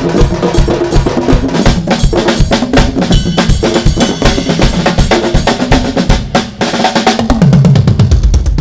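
Drum-heavy music with a fast, driving beat of kick, snare and other percussion; the hits quicken into a dense roll near the end.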